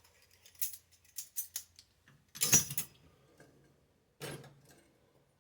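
Metal kitchen utensils clinking and clattering in a string of short knocks, with the loudest clatter about two and a half seconds in and another about four seconds in, as they are rummaged through while searching for a whisk.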